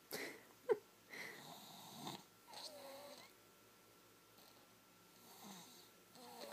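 A sleeping three-year-old snoring: a run of noisy breaths, some with a wavering pitched tone, with a sharp catch in the breath near the start that is the loudest moment. The breaths grow fainter in the second half.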